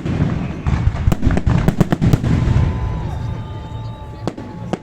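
Festive fireworks salute: a rapid series of cracks and bangs over a low rumble. The cracks thin out after about two seconds, with two more sharp cracks near the end.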